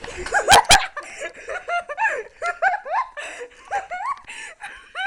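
A person giggling: a run of short, high-pitched bursts of stifled laughter, about three a second. Two sharp, louder noises come about half a second in.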